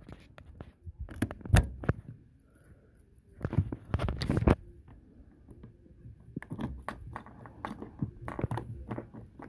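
Hard plastic roof-rack end cover and lock parts clicking, knocking and scraping as they are handled and pushed onto the bar: a few sharp clicks early, a short scraping rustle near the middle, then a run of small clicks and taps.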